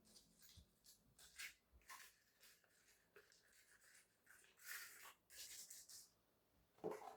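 Faint handling noises: soft rustles and scrapes, with a longer rustle about five seconds in and a light knock near the end.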